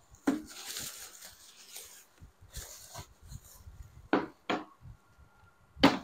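A microphone kit's packaging box being handled: a few light knocks, with rubbing and scraping in between.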